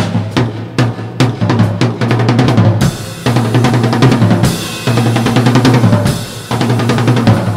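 Drum kit solo: rapid snare and bass drum hits, with cymbals crashing and ringing from about three seconds in.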